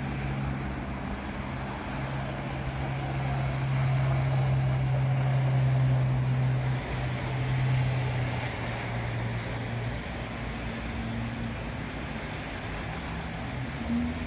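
Road traffic on a snow-covered street: a steady rushing noise with a low engine hum that swells a few seconds in and eases off after the middle.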